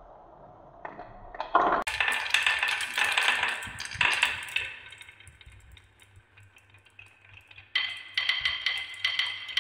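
Glass marbles rolling and clattering down a HABA wooden marble run, around a wooden spiral and along wavy wooden chutes. A dense rattle of clicks starts about two seconds in and fades away, then a fresh burst of rhythmic clattering comes near the end.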